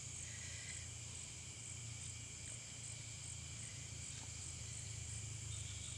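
Night insects, crickets among them, chirping steadily in a high trill that pulses about three times a second, over a faint low hum.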